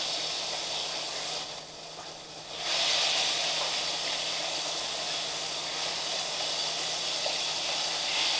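Floured zander fillets sizzling as they fry in hot vegetable oil in a frying pan. The sizzle dips for a moment, then grows louder about three seconds in.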